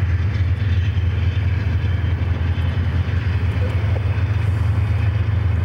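Steady low rumble of Conrail diesel locomotives getting under way.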